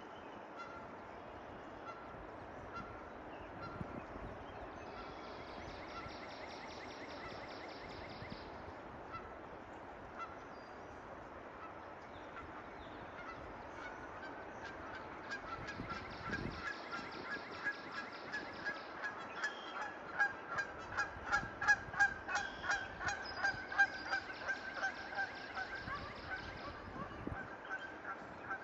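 Geese honking, a few scattered calls at first, building about halfway through into a rapid run of loud honks, several a second, that eases off near the end.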